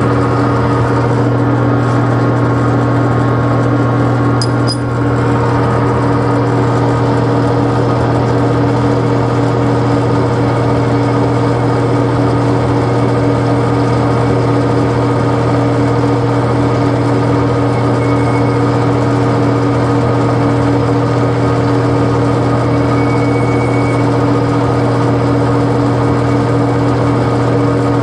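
Colchester 15x48 gear-head metal lathe running steadily with a constant mechanical hum, turning a small part. There is a brief dip about five seconds in.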